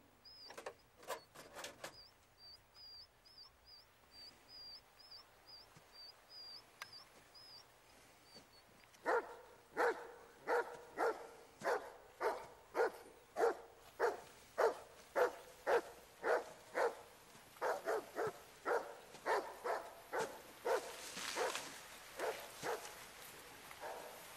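A dog barking over and over, about two barks a second, starting about nine seconds in and stopping a few seconds before the end. Before the barking there are quick, faint insect-like chirps, and near the end a soft rustling hiss.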